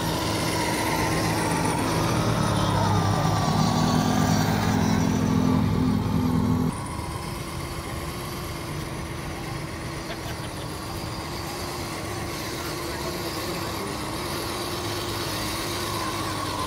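A steady mechanical motor hum that steps up in pitch about three and a half seconds in and cuts off suddenly a little after six seconds, leaving a quieter outdoor background with a faint steady tone.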